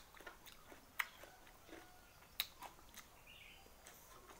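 A person chewing a mouthful of rice and raw cucumber, faint, with scattered sharp mouth clicks and smacks, two louder ones about a second and two and a half seconds in.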